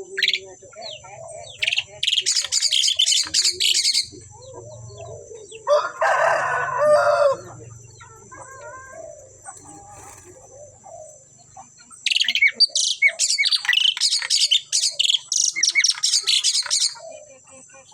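Javan pied starlings (jalak suren) calling: two long bursts of rapid, high chattering notes, with a louder, lower, harsh call in between. A steady high-pitched tone runs underneath throughout.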